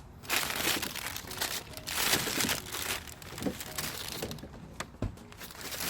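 Packaging material crinkling and rustling as it is handled, loudest in the first three seconds, then a few light clicks and knocks.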